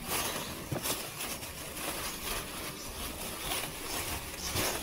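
Thin plastic grocery bags crinkling and rustling as they are handled and pulled out of a plastic cooler box, a continuous crackle.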